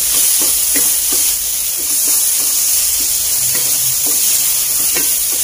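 Rice and chopped vegetables sizzling in a stone-coated non-stick frying pan while a wooden spatula stirs them, with a steady hiss and irregular soft scrapes and taps of the spatula against the pan.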